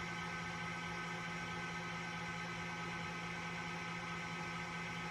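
Electric honey extractor running with frames spinning inside: a steady motor hum with a whir of noise, unchanging.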